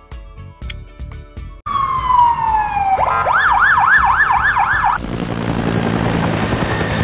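A run of sound effects. First a clock ticking; then, about a second and a half in, an ambulance siren that falls in pitch and then switches to a fast up-and-down yelp; then, about five seconds in, a helicopter's rotor running steadily.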